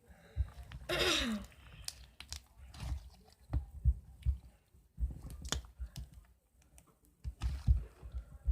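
Hands squishing and poking slime, making irregular wet clicks and pops, with a louder, longer squelch about a second in.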